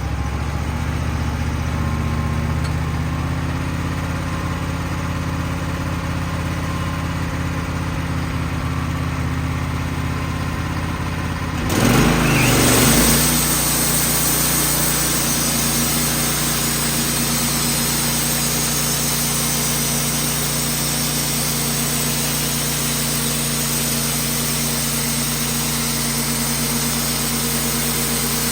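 Wood-Mizer sawmill's engine, just started, running steadily at idle, then revved up about 12 seconds in and held at a higher, steady speed.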